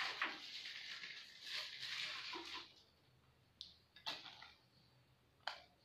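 Handling noise of small objects worked by hand: faint rustling for the first two to three seconds, then three short sharp clicks.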